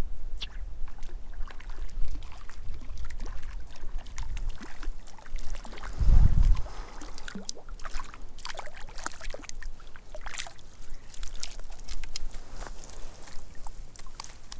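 Water splashing and dripping with scattered sharp clicks, as a hooked Arctic grayling is played and brought in at the water's edge. A single low thump about six seconds in.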